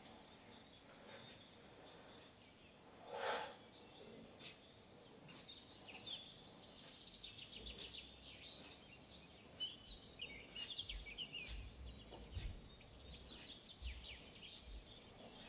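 Faint bird chirping: a short high chirp repeats about once a second, joined by rapid twittering trills from about six seconds in. A single brief louder noise comes about three seconds in.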